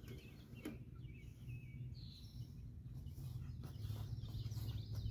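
Birds chirping in short, high calls, mostly in the first half, over a steady low outdoor rumble.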